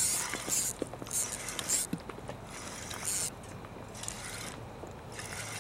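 Fishing reel being cranked to bring in a hooked fish, heard as a string of short raspy whirs.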